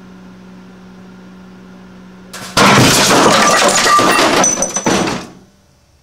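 A microwave oven hums steadily. About two and a half seconds in, the sealed, water-filled wine bottles heating inside it burst in a steam explosion: a sudden, very loud blast, then about three seconds of loud noise as glass and parts of the oven fly. The noise cuts off sharply, and the hum has stopped.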